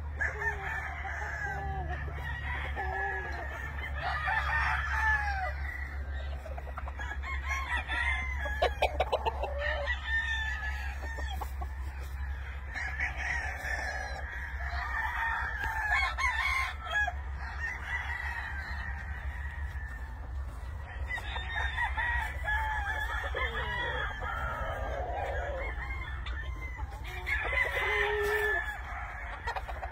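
Many gamefowl roosters crowing over one another without pause, with clucking among the crows. A brief rapid rattle, the loudest moment, comes about nine seconds in.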